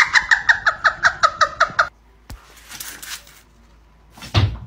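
A woman's high-pitched laughter in rapid, even bursts, about seven a second, breaking off about two seconds in. Near the end comes a loud, dull thump.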